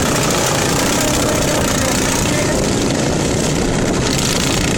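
Lawn mower engine running steadily and loud.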